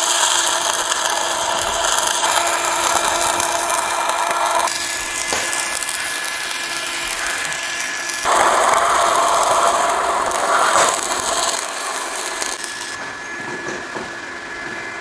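Stick-welding arc burning a 3.2 mm RB 6013 rutile electrode, a steady crackling sizzle as the bead is run. The crackle shifts in tone abruptly a few times and is quieter near the end.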